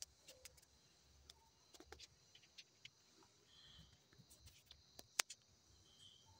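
Near silence: faint steady hiss with scattered soft clicks, one sharper click about five seconds in, and a few brief high chirps.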